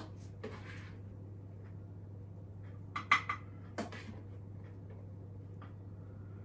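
A few light clinks of crockery and cutlery being handled: a quick cluster about three seconds in, the sharpest of them ringing briefly, and one more just under a second later, over a steady low hum.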